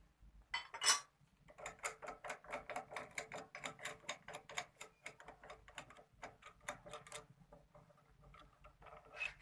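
Rapid, even clicking, about five clicks a second, that thins out to a few fainter clicks about seven seconds in.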